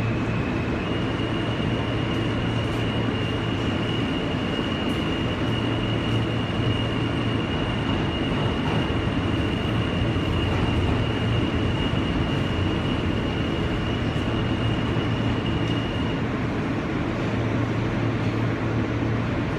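Interior running noise of an Alstom-built R160B subway car in motion: a steady rumble and hiss, with a thin, steady high whine that starts about a second in and stops a few seconds before the end.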